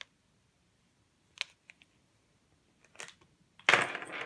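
A few light clicks and taps, then near the end a sudden loud rustling scrape of handling noise as the camera is moved over the cloth.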